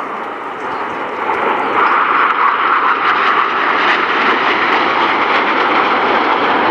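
Jet noise from a formation of Aermacchi MB-339 jet trainers flying past, their turbojet engines making a steady rushing sound that grows louder about a second in and then holds.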